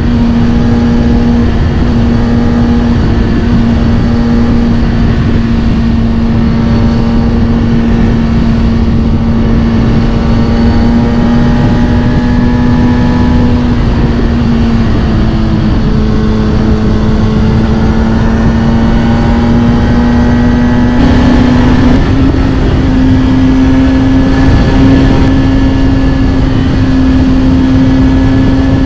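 Kawasaki Ninja ZX-6R inline-four with a Scorpion titanium exhaust, ridden at a steady cruise. The engine holds one steady note that sags slightly and then steps up a little about 21 seconds in, over a constant low rush.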